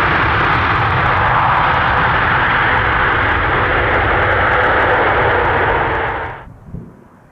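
Boeing 787-10 Dreamliner rolling out after touchdown on a wet runway: a loud, steady jet roar mixed with the hiss of spray. It cuts off sharply about six and a half seconds in, leaving faint wind noise.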